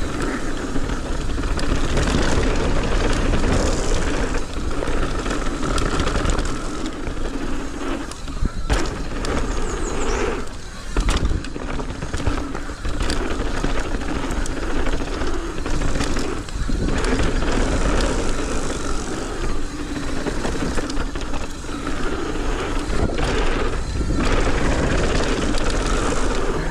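Mountain bike riding down a rough trail: steady tyre noise on dirt, with the chain and frame rattling and knocking over bumps, and wind rumbling on the microphone.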